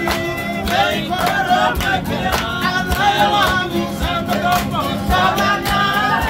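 A group of men singing together to strummed acoustic guitars, with hand-clapping in time.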